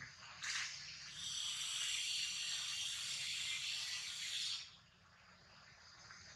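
Insects buzzing in a steady high hiss for about four seconds, then stopping fairly suddenly.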